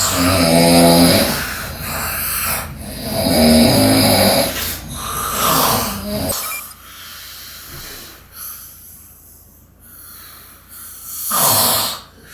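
A sleeping man snoring loudly, long pitched snores every two to three seconds. About halfway the sound turns much quieter, with one more loud snore near the end.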